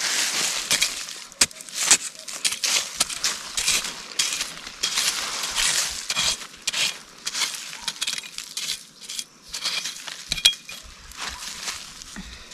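Dry leaf litter and soil crackling and rustling as hands scrape at the ground around a young cassava plant. The sound is a run of short, irregular scratches.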